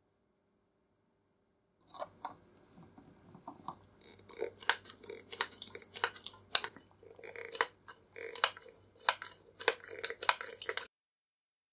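Antique hand-pump oiler being pumped over a small steel can: a run of sharp metallic clicks, one or two a second, as the thumb plunger strokes and oil squirts out, with softer handling noise between them.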